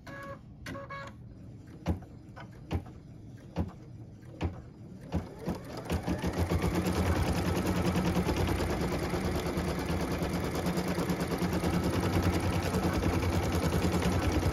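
Computerized embroidery machine: a few separate clicks, then about six seconds in it starts stitching at speed with a fast, even needle rhythm. It is sewing the accent placement lines of an appliqué design.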